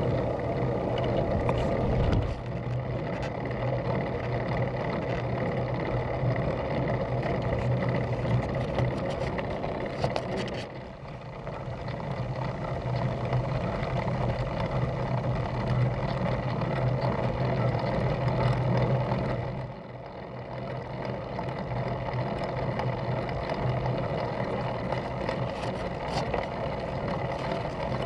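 Wind rushing over the microphone of a camera riding on a road bike, mixed with the hum of tyres on tarmac: a steady rumble and hiss that drops away briefly twice.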